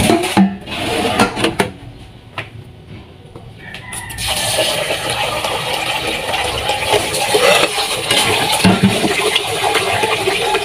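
Metal pots clatter as they are shifted in a stainless steel sink. About four seconds in, a kitchen tap starts running steadily into a metal pot of rice being rinsed.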